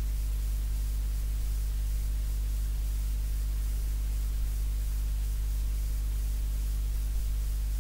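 A steady low hum with a few constant tones, under an even hiss, with no distinct knocks or other events.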